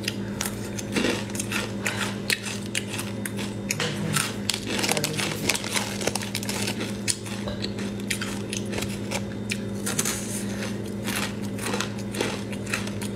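Crispy rice crust (guoba) being bitten and chewed: a dense, irregular run of crisp crunches. A steady low hum runs underneath.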